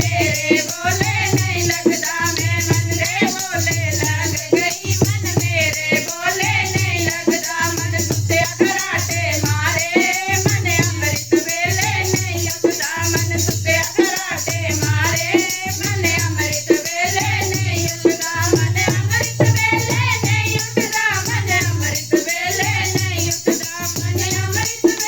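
Punjabi devotional kirtan music with a steady, repeating drum beat and jingling, shaken rattle percussion, and a wavering melody line over it between the sung verses.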